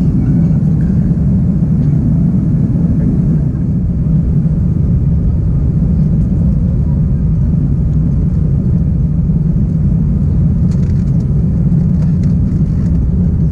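Steady low rumble of engine and airflow noise in the passenger cabin of an Airbus A330-200 airliner on its approach to land.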